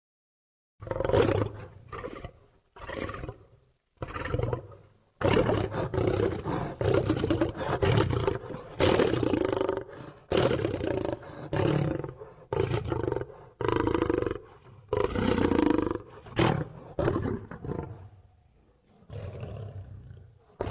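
Lion-like roar sound effects for a griffon creature: a run of roars and growls starting about a second in, some short and some drawn out with brief breaks between them, growing quieter near the end.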